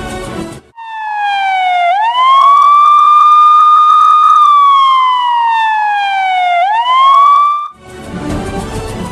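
Police siren wailing: the pitch climbs, holds high for about two seconds, sinks slowly, then climbs again before cutting off suddenly. Background music plays briefly before it starts and after it stops.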